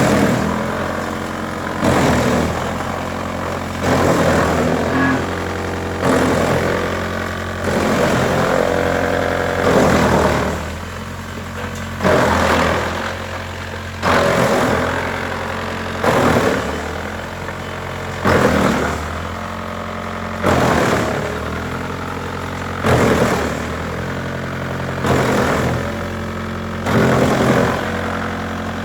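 Wood chipper running, a steady machine hum with a loud surge about every two seconds.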